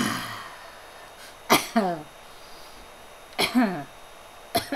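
A person doing a smoker's cough for a puppet: a harsh cough at the start, then two more voiced coughing bouts falling in pitch, about two seconds apart.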